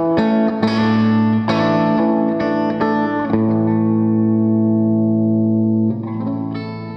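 Telecaster electric guitar with a Bigsby vibrato playing the closing chords of a tune: a run of picked chords over the first three seconds or so, then a chord held ringing, and a last chord about six seconds in that starts to fade out.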